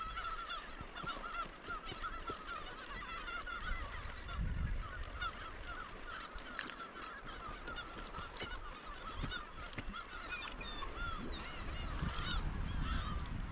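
A flock of birds calling nonstop, many short honking calls overlapping one another. A low rumble swells briefly about four seconds in and again near the end.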